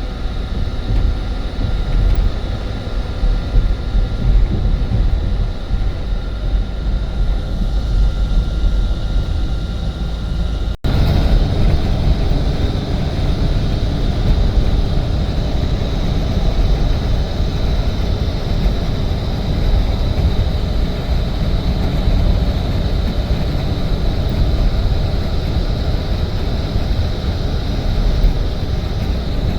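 Steady road noise of a moving vehicle: a strong low rumble with a hiss over it. It breaks off for an instant about eleven seconds in, then carries on much the same.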